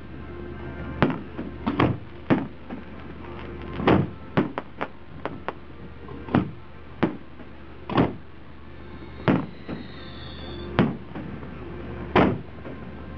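Aerial fireworks shells bursting overhead: a string of about sixteen sharp booms at uneven intervals, several coming in quick succession a third of the way in, each fading off fast. A brief high whistle sounds a little past the middle.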